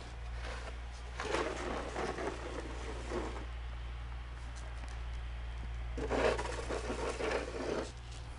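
Snow crunching and scraping underfoot in two stretches of about two seconds each, the first about a second in and the second about six seconds in, over a steady low hum.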